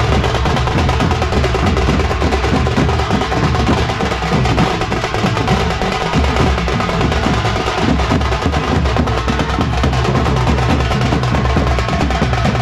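Tasha and dhol drum band playing together: fast tasha stick strokes and rolls over deep dhol beats, loud and without a break.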